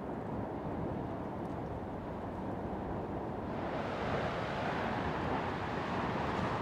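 Lava lake churning in a volcanic crater: a steady, deep rumbling noise that swells louder and brighter about three and a half seconds in as the lava surges and splashes up.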